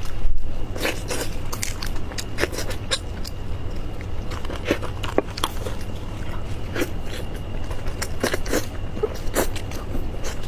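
Irregular short crackles and crunches of a whole kiln-roasted chicken being torn apart and eaten, over a steady low hum.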